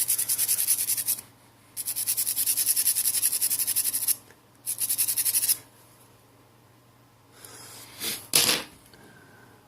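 Rapid back-and-forth scrubbing on a small phone flex-cable connector to clean it with alcohol, in three bouts, the middle one longest. Two brief scrapes follow near the end.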